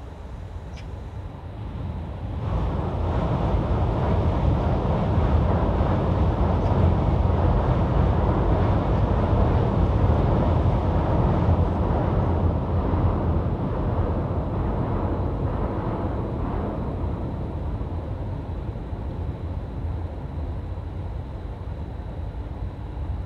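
Train rumbling across a steel railway bridge: the noise swells suddenly about two seconds in, holds for about ten seconds, then slowly fades.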